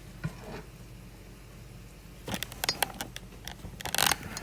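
Serving utensils clicking, clinking and scraping against dishes in a quick cluster during the second half, with one short metallic ring.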